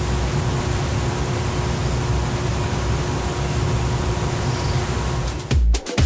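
Water rushing steadily down a concrete tailrace channel, a continuous noise with a heavy low rumble. Dance music with a strong beat cuts in near the end.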